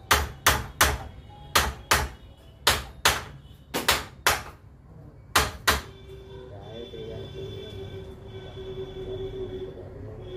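Hammer striking metal about a dozen times in quick, uneven succession while a submersible pump motor is being knocked open. About six seconds in the blows stop and a steady machine hum takes over.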